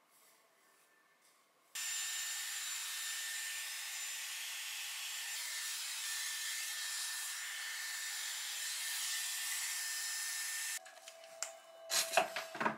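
Dyson Airwrap-style hot-air styler blowing with its round brush attachment: a steady rush of air with a thin high motor whine, starting about two seconds in and cutting off abruptly near the end, followed by a few knocks and clicks.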